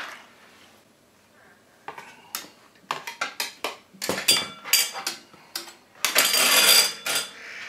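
Metal hand tools clicking and knocking on a workbench as they are set down, then a steel tape measure pulled out with a loud rattle lasting about a second near the end.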